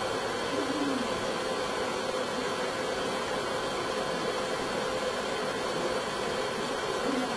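Steady hiss with a faint constant hum: the background noise of the recording, with no distinct sound event.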